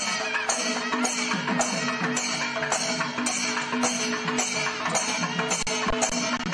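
Music with a steady percussion beat: a bright, crisp stroke about twice a second over sustained held notes.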